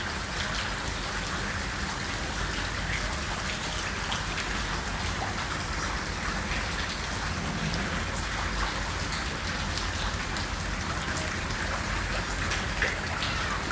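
Heavy rain falling steadily, with scattered drops striking close by.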